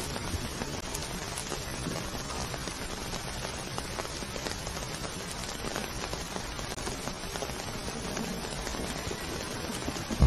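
Steady rain falling: an even hiss with faint patter of drops, and no meowing.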